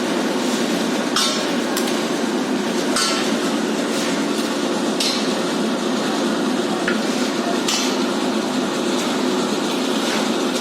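Manual construction work: a handful of sharp metallic clinks and knocks from hand tools at irregular intervals, over a steady low din.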